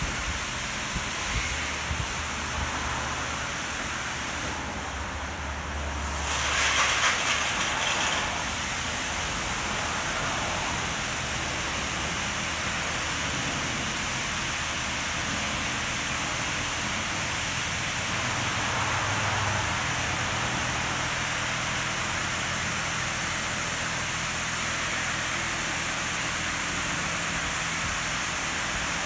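Oasis Typhoon touchless in-bay car wash spraying water over a car: a steady hiss of spray, with a louder, harsher surge about six to eight seconds in.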